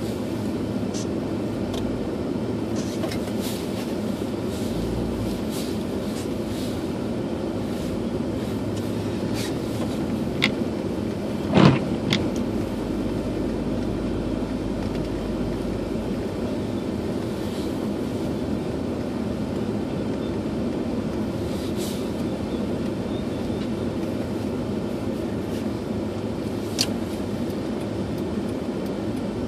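Steady cabin noise of a car driving slowly through snow with its heater blower running. There is a sharp knock about twelve seconds in and a few fainter clicks.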